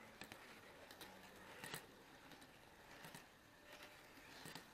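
Faint, evenly spaced clicks, about one every second and a half, over quiet room hiss: the wheels of an HO-scale camera car passing over rail joints.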